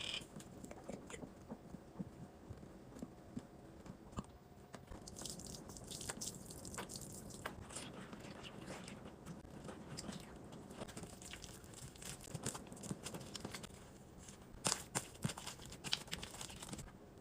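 Glow-in-the-dark slime being squeezed and stretched by hand, giving irregular wet clicks and crackling pops. The crackling thickens around five to eight seconds in, and the sharpest pops come near the end.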